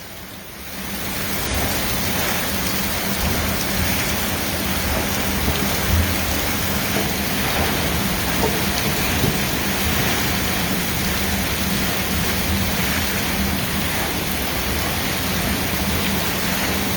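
Heavy rain and floodwater gushing up out of a flooded manhole during a flash flood: a steady rush of water noise that swells in over the first second and then holds level.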